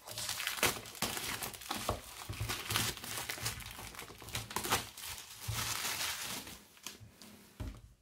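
Thin clear plastic shrink-wrap being peeled off a small cardboard box and crumpled by hand: a steady crinkling and crackling with some tearing. It dies down near the end with a light knock.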